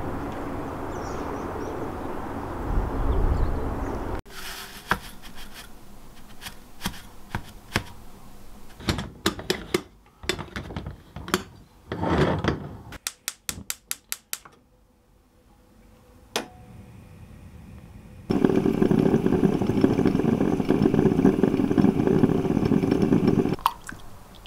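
Metal clinks of an aluminium stovetop moka pot being handled and set on a gas hob, then a quick, even run of clicks from the hob's igniter. After a short quiet spell comes a loud, steady hissing sputter of about five seconds as the pot brews.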